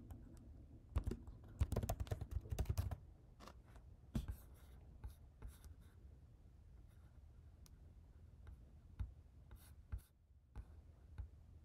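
Computer keyboard typing: a quick run of key presses between about one and three seconds in, then scattered single key taps and clicks.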